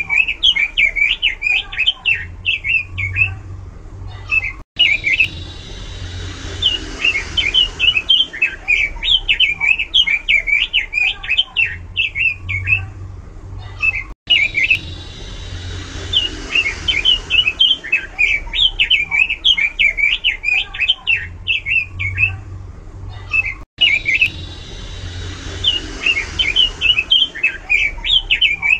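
Red-billed leiothrix (Pekin robin) singing loud, fast warbling phrases with lots of variation. The same stretch of song repeats about every nine and a half seconds, each time after a brief cut.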